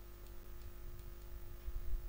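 Steady low electrical hum and microphone rumble, with a few faint taps.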